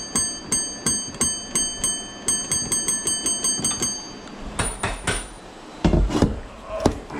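Electronic alarm beeping rapidly, about three high-pitched beeps a second, which stops about four seconds in. It is followed by a few heavy knocks and bangs of demolition work.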